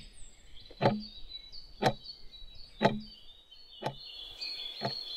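Desk clock ticking loudly and evenly, one tick a second, with birds chirping faintly and high in the background.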